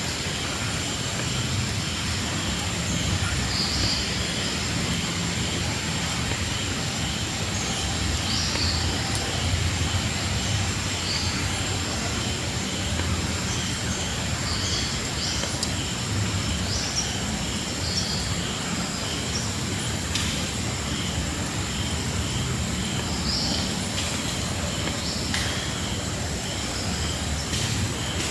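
Tropical forest ambience: a steady high-pitched insect drone over a faint, evenly pulsing chirp, with a few short bird calls now and then and a low rumble underneath.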